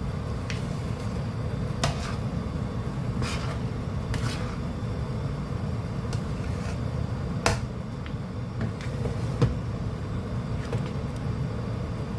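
A spatula scraping and knocking against a pot while stirring a thick, sticky glutinous-rice calamay mixture, with a few sharp clicks, over a steady low rumble.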